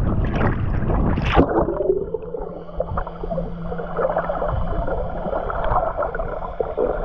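Water sloshing and gurgling around a waterproof action camera, turning muffled about a second and a half in as the camera goes under the surface.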